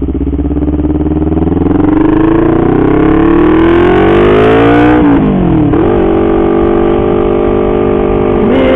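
Honda CBR250RR motorcycle engine through an R9 aftermarket exhaust, heard from the rider's seat: the revs climb steadily for about five seconds under acceleration, drop sharply, dip once more, then hold steady while cruising.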